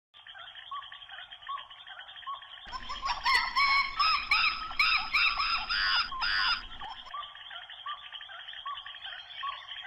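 A dense chorus of short, repeated chirping animal calls, growing louder and busier from about three to seven seconds in, with a few sharp clicks.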